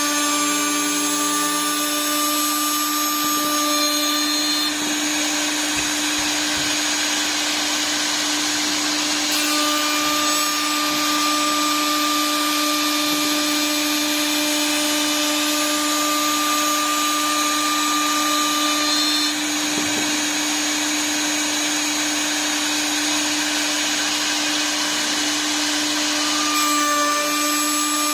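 CNC wood lathe spindle running steadily while its cutter mills wood: a constant motor tone under continuous cutting hiss.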